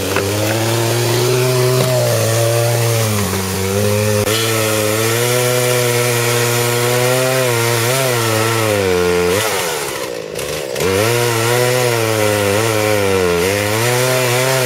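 Gas chainsaw cutting into a tree trunk, engine running at high revs with its pitch wavering as the chain loads in the cut. The revs sag briefly about ten seconds in, then pick up again.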